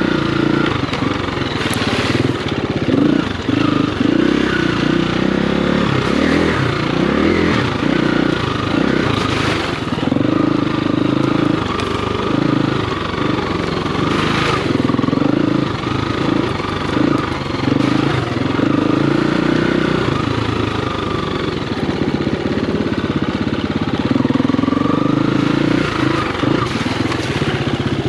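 Motocross dirt bike engine being ridden, its revs rising and falling continually as it goes through the gears. A few short rushes of noise break through, about two, nine and fourteen seconds in.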